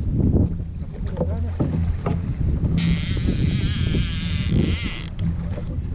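Fishing boat's engine running steadily with a low hum, and a loud hiss that starts suddenly about halfway through and cuts off about two seconds later.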